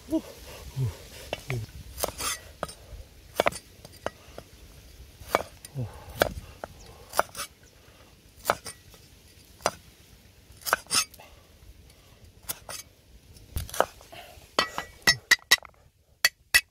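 Heavy steel cleaver chopping a root on a round wooden chopping block: sharp single knocks at an uneven pace, about one a second.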